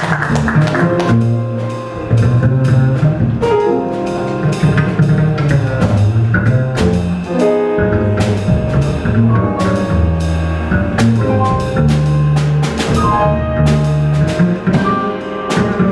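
Jazz piano trio playing: grand piano, walking upright bass and drum kit with cymbals. Applause from the previous passage dies away in the first second.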